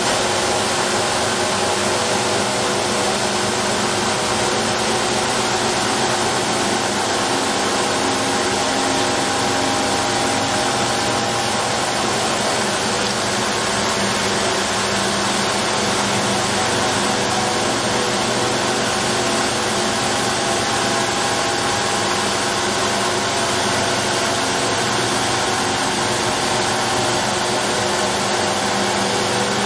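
Double-head abrasive belt polishing machine grinding a steel tank shell: two sanding belts running over contact wheels against the metal, giving a steady loud hiss with motor hum underneath.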